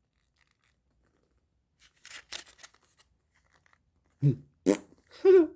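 Brief crinkling and rustling of toy packaging being handled, a quick cluster of crisp clicks about two seconds in; a man's voice starts near the end.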